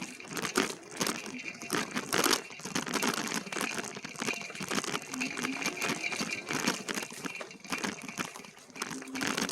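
Irregular crackling and rustling of dry leaves, twigs and brush as an e-bike rides along a narrow, overgrown trail, with a few louder snaps.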